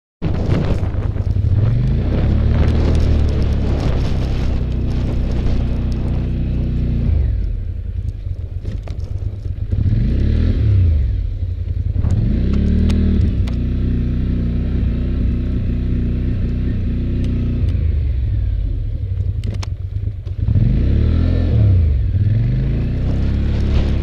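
Polaris Sportsman 850 ATV's engine running under load while plowing snow, revving up and easing back several times, with a scraping plow blade underneath.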